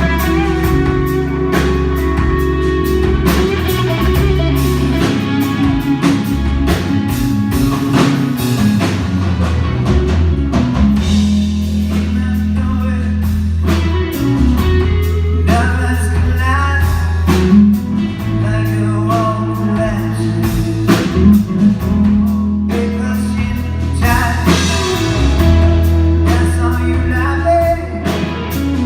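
Rock band playing live: electric guitar, bass and drum kit, with a singer's voice over them, plainest in the second half.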